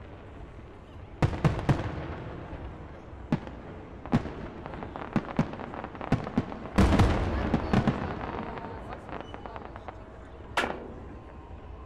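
Aerial fireworks shells bursting in sharp, echoing bangs. There is a quick run of three about a second in, scattered single reports, a dense burst of bangs with crackle just past the middle, and one last bang near the end.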